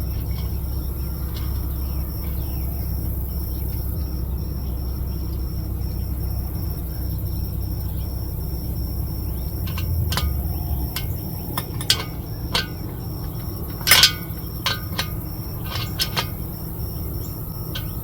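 Clicks and clinks of small diesel heater parts being handled and fitted during reassembly, scattered through the second half, the loudest about fourteen seconds in, over a steady low rumble.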